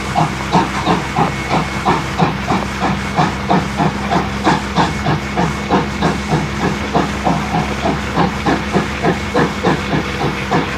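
Steam locomotive Rx207 working up a grade, its exhaust beats coming evenly at about three a second over a steady hiss of steam.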